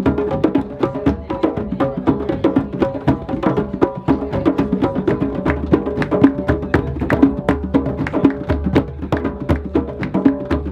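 Drum circle: many drums played together in a fast, dense rhythm of sharp strikes.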